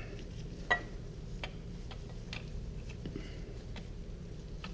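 Sharp metal clicks about every three-quarters of a second, the loudest about a second in with a brief ring, as a wrench is worked round a switch threading into the aluminium engine case of a 1974 BMW R90S.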